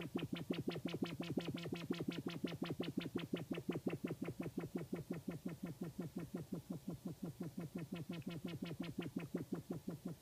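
Doepfer Dark Energy Mark I analog synthesizer playing a fast repeating pulse, about seven notes a second, each a short downward zap, from LFO and frequency modulation over a steady low tone. The sound brightens and dulls as the filter cutoff and resonance are turned: brightest about a second in, duller in the middle, bright again near the end.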